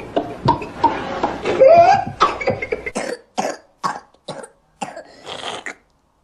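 A child with whooping cough in a coughing fit: rapid coughs, with a rising, pitched in-drawn breath (the pertussis whoop) about two seconds in, then a string of short, sharp coughs in quick succession.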